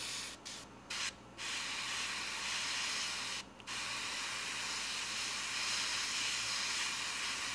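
Gravity-feed airbrush spraying paint onto a small plastic model part: a few short puffs of hiss in the first second or so, then a long steady spray with a brief break about three and a half seconds in.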